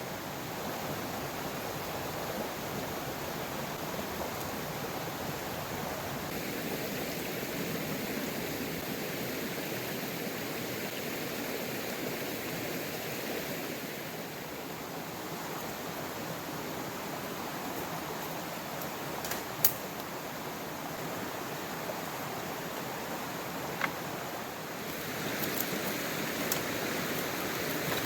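Rushing stream water, a steady hiss of flowing water. Two sharp clicks cut through it in the second half, and the hiss grows brighter near the end.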